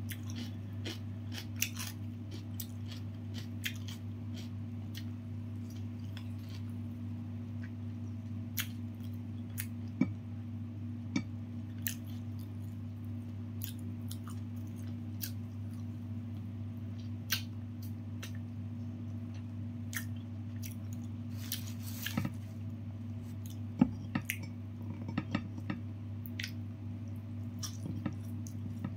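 Eating crispy fried chicken: chewing, with scattered sharp crunches and crackles as the breaded coating is torn apart by hand and bitten. A steady low hum runs underneath.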